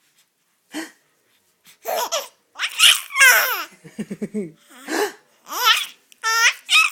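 A baby laughing and squealing in a string of short, high-pitched bursts, with a quick run of chuckles near the middle.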